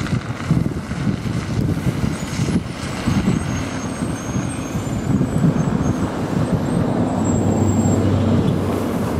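Wind rumbling on the microphone over parking-lot traffic noise, with a vehicle engine humming steadily through the second half.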